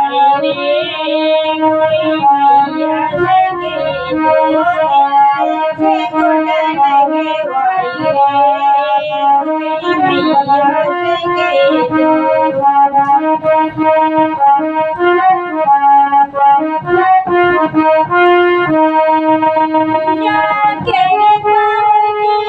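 A keyboard instrument playing a bhajan melody, held notes under a moving tune, with no singing.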